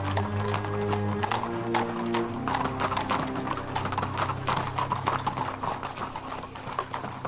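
Horse hooves clip-clopping, many irregular strikes in quick succession, over a music score of held low notes.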